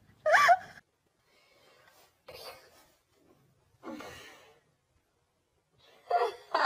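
A person's voice: a short high vocal sound just after the start, then two breathy gasps, and voice again near the end.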